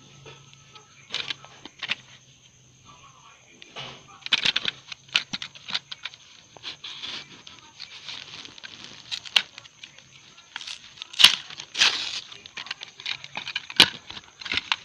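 Card-backed plastic blister pack of correction tape being peeled and torn open by hand: crinkling plastic, tearing card and scattered sharp clicks, the loudest about eleven seconds in and again near the end.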